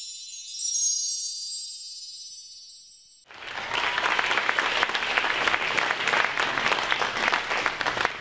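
A short title jingle of high chiming, bell-like tones fades out, and about three seconds in an audience breaks into steady applause.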